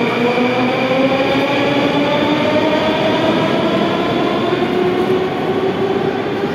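Metro train's electric traction motors whining in several tones that rise steadily in pitch as the train accelerates away from the platform, over the rumble of the train.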